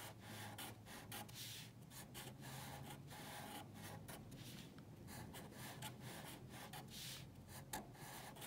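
A Sharpie felt-tip marker drawing on paper: faint, quick strokes of the tip rubbing across the sheet as zigzag lines are drawn.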